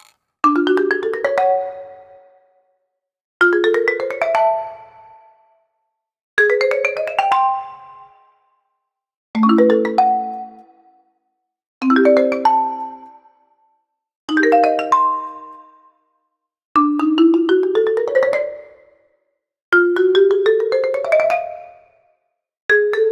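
A string of short mallet-like musical jingles, one about every three seconds: each is a quick rising run of notes that settles on a chord and fades out, with silence between them.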